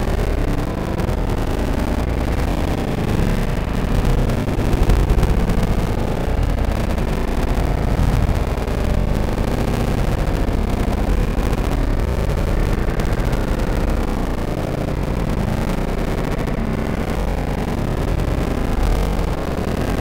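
Steady low rumble of distant city traffic, with no distinct events standing out.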